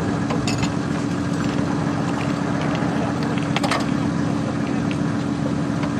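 Diesel engine of a tracked over-snow vehicle running steadily. A few sharp clicks are heard, one about half a second in and another near the middle.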